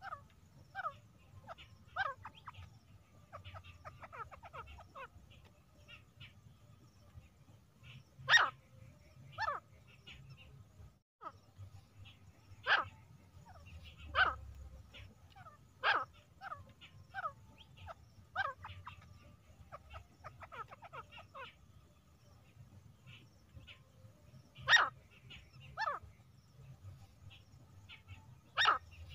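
Female grey francolin calling: short, sharp single calls at irregular intervals, some followed by a second call about a second later, with softer runs of quick notes between them.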